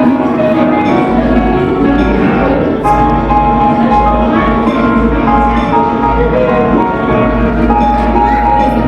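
Background music: bell-like mallet notes over a steady low bass.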